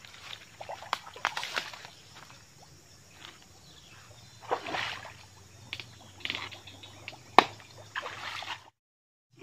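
Feet wading through shallow, muddy stream water: irregular sloshing and splashing steps, with one sharper, louder splash near the end before the sound cuts off.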